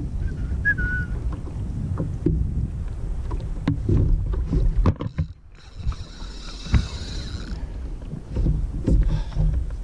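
Water slapping and lapping against a plastic fishing kayak's hull, with wind buffeting the microphone and scattered sharp knocks and clicks from the rod and reel being worked. A brief hiss comes in about six seconds in.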